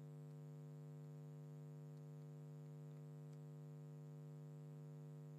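Near silence apart from a faint, steady electrical hum with even overtones, and two faint ticks about two and three seconds in.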